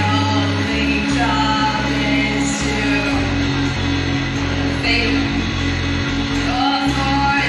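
Music with a singing voice over a bass line.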